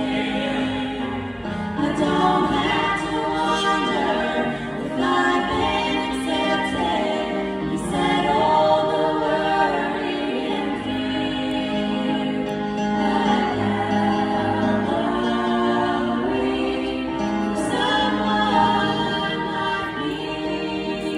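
Women singing a gospel song in harmony through microphones, accompanied by a Yamaha digital piano.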